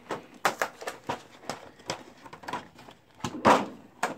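Clear plastic cover of a tray of plastic miniatures being handled and pulled off: a string of light plastic clicks and taps, with a louder rustling scrape about three and a half seconds in.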